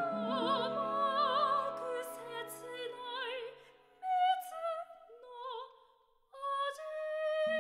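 Female voice singing operatically with strong vibrato over sustained instrumental accompaniment, the phrases breaking off near four seconds and again near six seconds before a new chord comes in.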